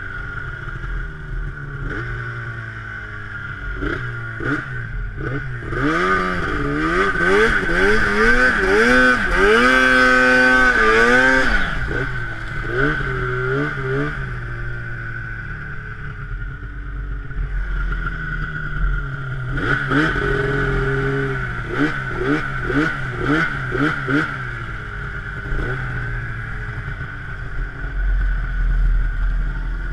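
Snowmobile engine under the rider's throttle, its pitch rising and falling again and again as it revs up and eases off. It climbs and holds high about a third of the way in and again about two-thirds in, over a steady high whine.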